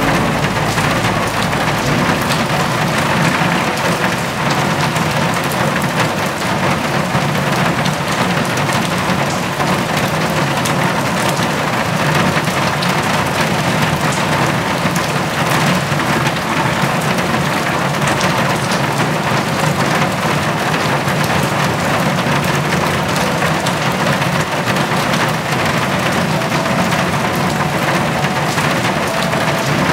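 Steady rain falling and splashing, an even dense hiss with no breaks. A low rumble underneath fades out in the first second or two.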